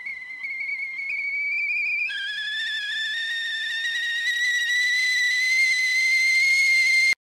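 A high, wavering whistle-like tone that drops in pitch about two seconds in, then slowly rises in pitch and grows louder before cutting off suddenly near the end.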